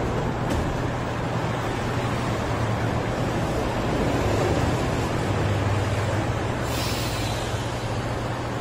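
Mexico City Metro train at the platform with its doors shut, giving a steady low hum, with a short hiss of air about seven seconds in as it gets ready to pull out.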